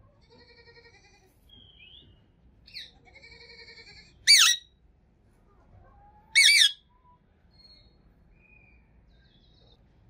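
Indian ringneck parakeet calling: soft, nasal chattering in the first few seconds, then two loud, shrill screeches about two seconds apart, each about half a second long.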